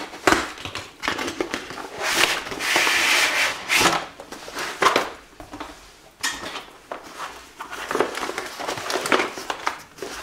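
Keyboard packaging rustling and crinkling, with irregular knocks and scrapes, as a tightly packed keyboard is worked out of its box.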